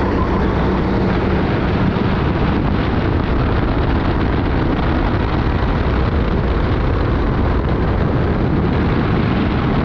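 Sodi rental kart's engine running hard at racing speed through a corner and onto a straight, recorded from a helmet chin-mount camera, with a strong rush of wind noise over it.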